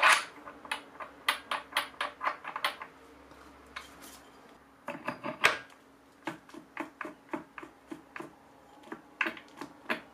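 Metal clinking and clicking as a thin steel flange is handled on a bench grinder's threaded spindle, followed by a run of light knocks, about two or three a second, as a grinding wheel is moved by hand on the spindle.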